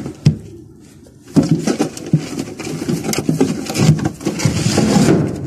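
Close-up rustling and knocking from handling right at the microphone: a sharp click at the start, a quieter second, then about four seconds of continuous scuffling with small knocks.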